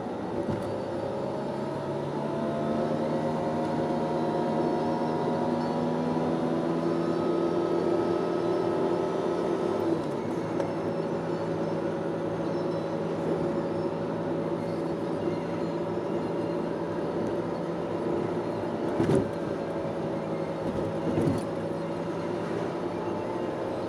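An engine droning steadily, its pitch rising slightly in the first couple of seconds and then holding, with a few short knocks in the second half.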